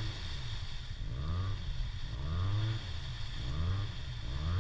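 Arctic Cat Wildcat side-by-side engine revving in repeated surges, about four rises in pitch, as it churns through deep mud under load.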